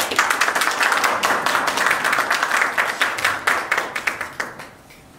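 Audience applauding, many hands clapping at once; it starts suddenly and dies away about four and a half seconds in.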